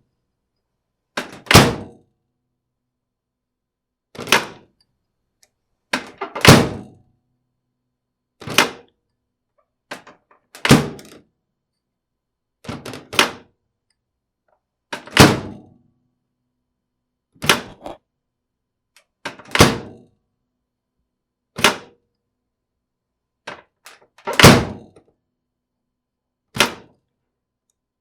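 Microwave oven door opened and closed over and over: short sharp latch clicks and thuds about every two seconds, some a quick double click, with silence between.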